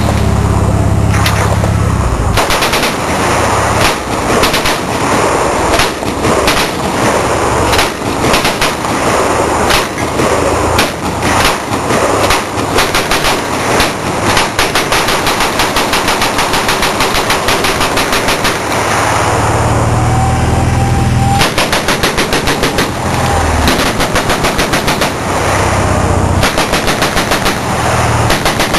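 Several machine guns firing on full auto at once, in long overlapping bursts that run together into a continuous rattle, with an even, rapid stretch of steady fire in the middle. A low rumble sits under the shots in the first two seconds and again in patches near the end.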